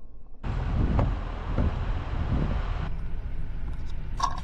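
Steady outdoor background rumble and hiss, starting abruptly about half a second in, with a brief sharp click near the end.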